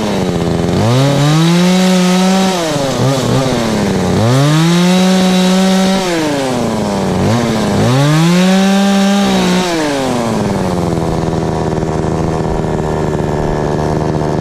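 Two-stroke chainsaw revved up to high speed three times, each burst held about two seconds before dropping back, then left running at a steady idle.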